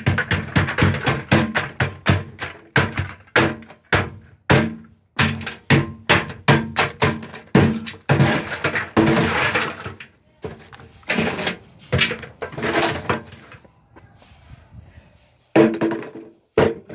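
Claw hammer smashing clay pots and other objects in a metal wheelbarrow: rapid blows, about three a second, with breaking and crunching. The blows thin out, pause briefly near the end, then resume.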